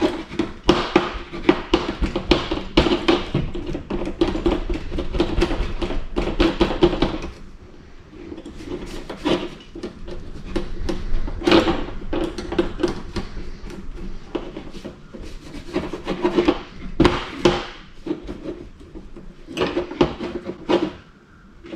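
Cloth rag scrubbing a gauge cluster's circuit board in rapid back-and-forth strokes, wiping it clean before its cracked solder joints are reheated. The scrubbing is dense at first, then turns intermittent, with a few sharper knocks of the board being handled.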